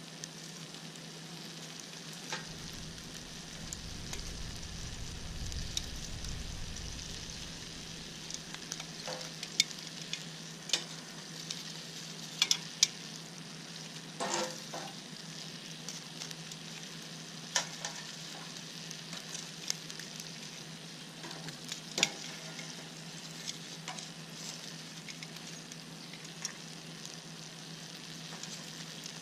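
Food sizzling and frying in a pan over a campfire: a steady high sizzle with sharp pops and clicks at irregular moments. A low rumble underneath for a few seconds near the start.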